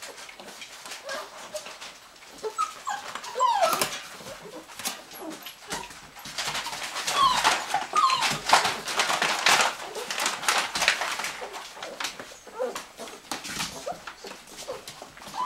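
Six-week-old puppies nursing: short high whimpers and squeaks that bend up and down, over scrabbling, rustling and little clicks as they push in at their mother. The activity is busiest and loudest in the middle.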